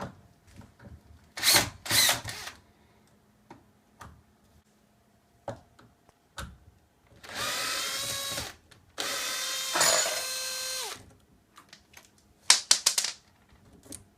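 A cordless drill-driver whines in two runs of about one and a half and two seconds, taking out the screws of the old door lockset. Sharp knocks and clatter of the metal hardware come about one and a half seconds in and again near the end, louder than the drill.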